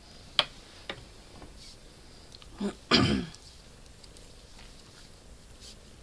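A cat gives a short vocalization about three seconds in: a brief low chirp, then a louder, falling meow lasting about half a second. Earlier, knitting needles click lightly twice.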